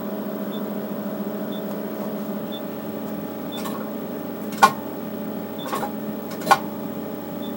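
Steady hum of a running Nd:YAG laser unit, from its cooling pump and power supply. Two sharp clicks come about four and a half and six and a half seconds in, with a fainter click between them, as the laser is triggered.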